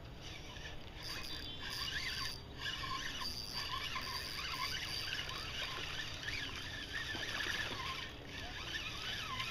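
Topwater mouse lure being reeled across a calm pond, churning the surface with a steady run of gurgling, squeaky chirps.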